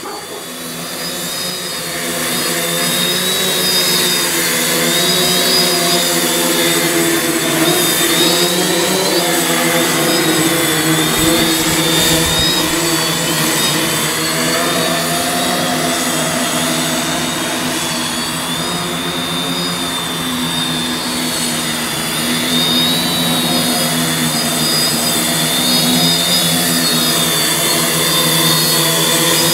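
Waterproof AquaCopter quadcopter hovering in wind and rain: the steady buzz of its motors and propellers, its pitch wavering as the motors speed up and slow down, over a hiss of wind and rain.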